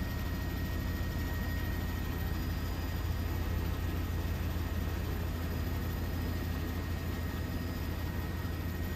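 Steady low rumble of aircraft noise with a faint constant high whine, even throughout with no swell of a jet passing.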